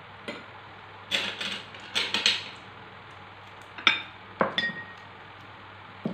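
Glass bowls and a spoon clinking and knocking as they are handled and set down on a plate: a few scraping knocks in the first half, then two sharp clinks about four seconds in, the second ringing briefly.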